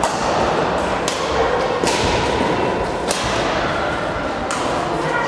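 Badminton rackets striking a shuttlecock in a rally: about five sharp cracks roughly a second apart, echoing in a large sports hall over a steady background hubbub.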